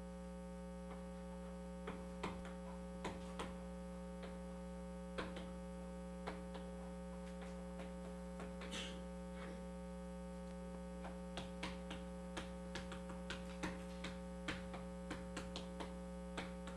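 Steady electrical mains hum, with scattered faint clicks and taps that come more often in the last few seconds.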